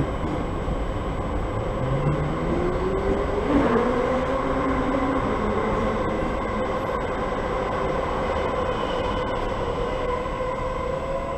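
Southeastern electric multiple-unit train moving through the station, with a steady rumble and a motor whine that rises slowly in pitch as it gathers speed, a second rising whine joining near the end.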